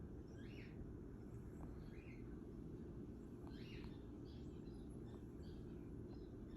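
A sleeping cat's squeaky snoring: faint, short high squeaks with each breath, about every second and a half, over a steady low background noise.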